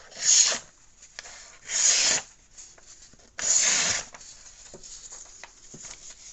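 The 420HC knife blade of a Leatherman Rev multi-tool making three rasping slicing strokes through material in a sharpness test. The third stroke is the longest.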